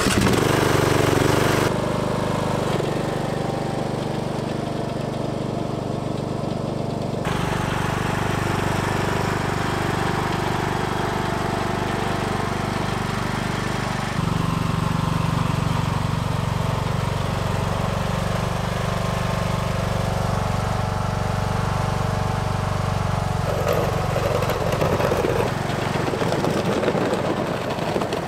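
Ride-on lawn tractor engine running steadily, just after a key start. Its tone changes abruptly a few times.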